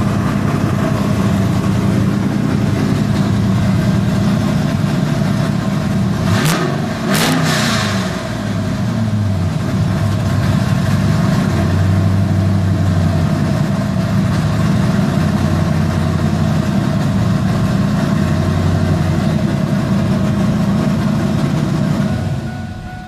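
GM LQ4 6.0-litre V8 with a COMP Cams LSR camshaft and FAST 102 mm intake, idling warm and slightly high, heard from inside the cab. A brief disturbance with two sharp clicks comes about a third of the way in, and the engine sound dies away just before the end.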